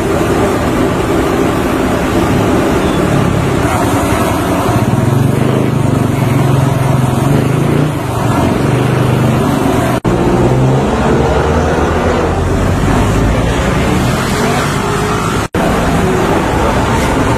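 Loud, steady outdoor background noise with a low hum from about four to ten seconds in, broken by two very short dropouts at cuts.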